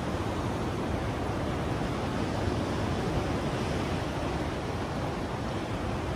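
Steady wash of ocean surf, mixed with wind noise.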